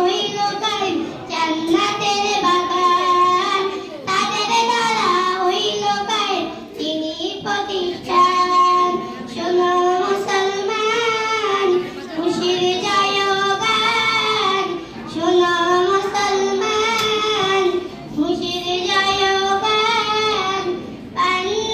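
A girl singing a Bengali Islamic song solo into a microphone, her voice played through a loudspeaker, in long melodic phrases with short breaths between them.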